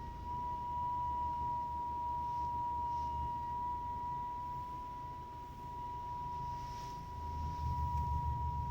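Skoda Octavia Tour parking brake squeaking: one steady, high-pitched squeal that wavers slightly in pitch, over a low rumble from the car.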